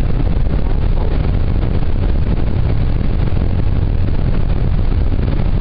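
Steady low rumble of road and wind noise inside a moving car at highway speed.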